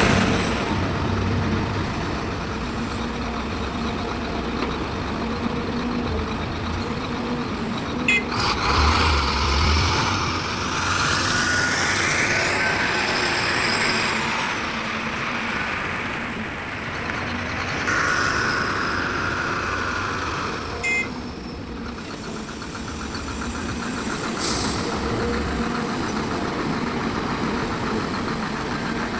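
Heavy diesel machinery running steadily: an excavator working beside dump trucks. Loud hissing sounds rise over the engine noise about eight seconds in and again about eighteen seconds in, with a whine between them.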